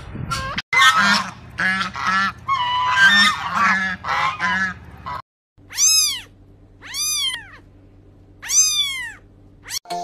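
A quick run of short squawking animal calls. After a brief break, a cat meows three times, each meow rising and then falling in pitch.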